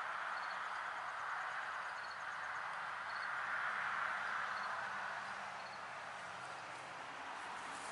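Steady outdoor background hiss, with faint short high chirps now and then.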